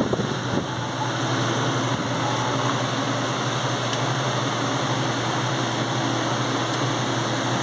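Steady mechanical hum with a constant low drone, without change; no gunshots.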